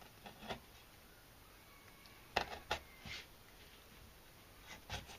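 Kitchen knife cutting the fin off an inada (young yellowtail) fillet on a wooden cutting board: a handful of faint, short clicks and taps of the blade, the clearest about two and a half seconds in.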